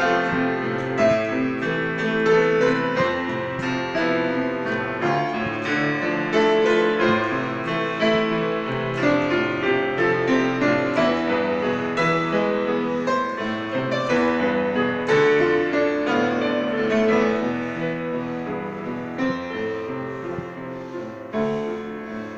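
Piano duet: an upright acoustic piano and a Casio Privia digital piano playing together in continuous notes and chords, growing gradually quieter over the last few seconds.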